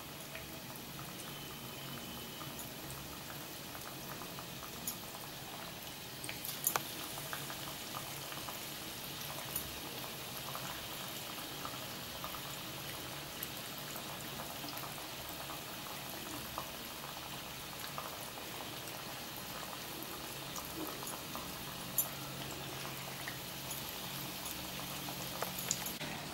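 Crumb-coated paneer pakoda deep-frying in hot oil in a metal wok: a steady sizzling hiss with scattered sharp pops and crackles, a little louder after about six seconds.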